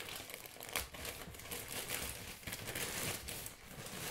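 Plastic mailer bag crinkling and rustling as it is handled and opened and a fabric snuggle sack is pulled out of it, with a sharper crackle about a second in.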